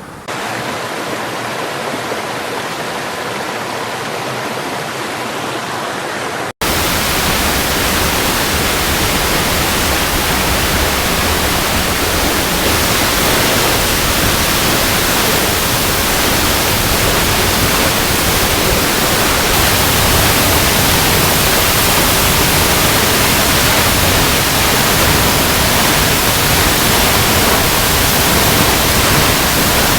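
Steady rushing of running water, a dense even hiss over all pitches. About six and a half seconds in, it cuts out for an instant and comes back louder.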